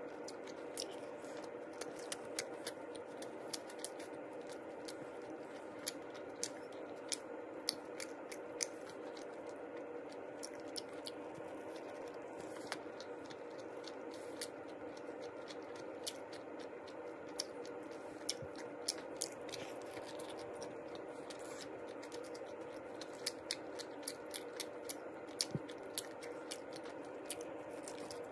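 Crisp, irregular crackling of a dried-seaweed (gim) wrapped Spam rice sandwich being torn apart and handled close to the microphone, over a steady background hum.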